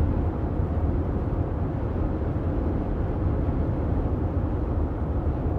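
Steady low rumble of background noise with no distinct event in it.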